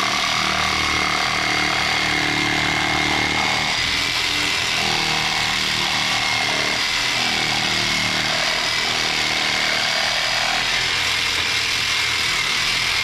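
Electric jigsaw, clamped upside down in a vise, running steadily while its blade cuts a circle out of a rubber mud flap, with a steady high-pitched motor whine.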